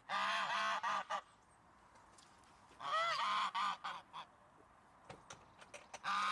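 Goose honking in quick runs of repeated calls: one run at the start, another about three seconds in, and a third beginning near the end, with a few faint clicks in between.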